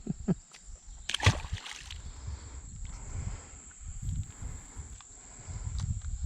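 Water sloshing around a kayak as a hooked fish is reeled in, with one sharp knock about a second in.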